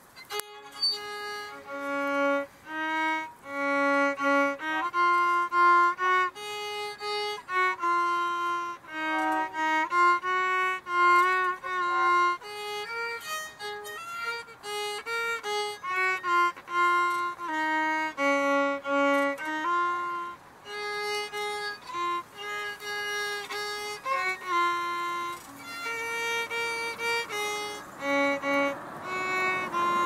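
Solo violin playing a melody one note at a time, mixing short notes with held ones.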